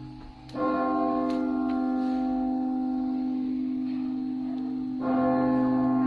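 A large church bell tolling, struck twice about four and a half seconds apart, each stroke ringing on in a long, slowly fading hum.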